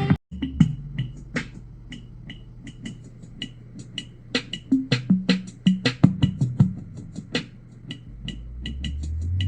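Electronic bass-test music played through a pair of Zealot S53 portable Bluetooth speakers: a drum-machine beat with sharp hi-hat ticks over a deep, steady bass line. The sound cuts out briefly just after the start, and a deep bass tone swells in near the end.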